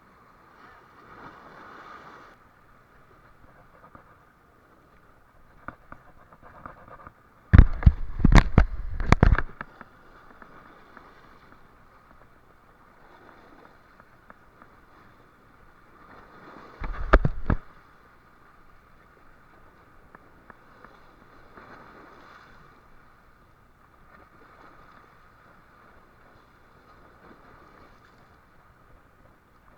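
Low steady background of a boat at sea, broken twice by loud bursts of knocks and deep rumble: a long one lasting about two seconds, a third of the way in, and a shorter one just past halfway.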